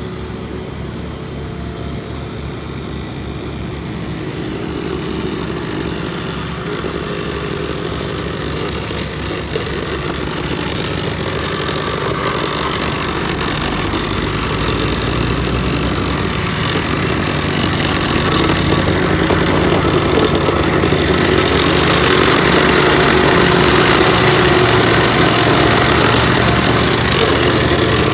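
Engines of asphalt paving machinery running steadily, growing louder through the second half.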